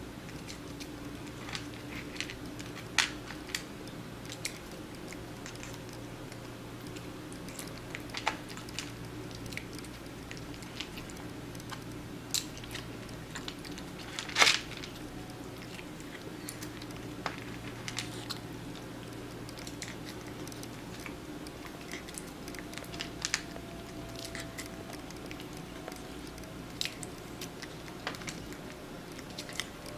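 Persian kitten chewing and crunching food, among scattered sharp clicks, the loudest about halfway through, over a steady low hum.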